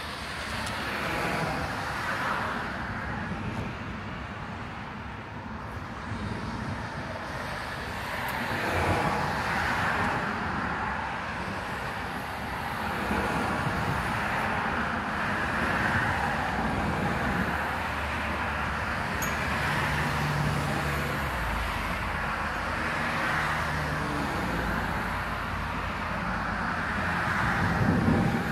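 Road traffic passing, the tyre hiss of one car after another swelling and fading every few seconds.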